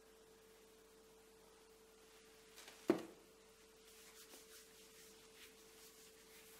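Hands rubbing a shoe last, faint soft strokes from about four seconds in, with a single sharp knock a little before, over a steady faint hum.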